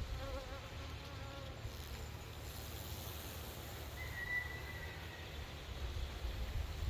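Swarm of honeybees buzzing around their cluster: a wavering hum of many wingbeats, clearest in the first second or so. This is a swarm that has left its hive and settled around a queen on a branch.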